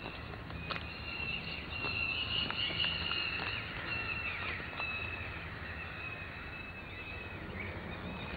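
High-pitched animal calls outdoors: a steady, wavering chirring tone that swells a couple of seconds in and fades toward the end.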